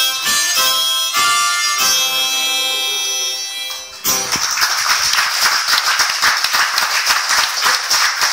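Harmonica with acoustic guitar ends the tune on a long held chord that fades out. About halfway through, the audience breaks into applause and clapping, which carries on.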